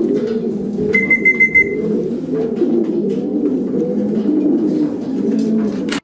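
Many racing pigeons cooing at once in a loft, a dense continuous chorus of overlapping low coos. About a second in, a short high beeping tone sounds briefly over it.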